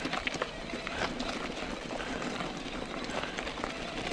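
Mountain bike riding noise on a rough trail: a steady rush of tyre and wind noise, dotted with many small rattles and clicks from the bike.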